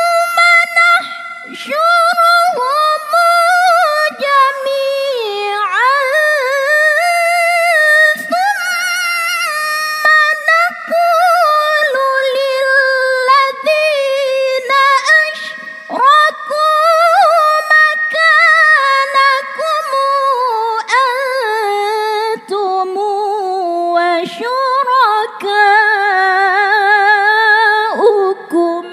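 A woman chanting Quran recitation (tilawah) in the melodic style, drawing out long phrases with trembling, ornamented turns of pitch and only brief pauses for breath. The chant stops right at the end.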